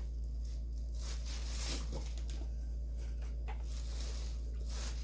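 Steady low hum with a few faint, brief rustles and ticks, a couple of seconds apart, as of plastic packaging being handled.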